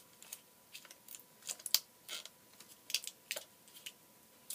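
Clear tape and cardboard being handled as tape is pressed onto a cardboard craft: light, irregular short clicks and rustles.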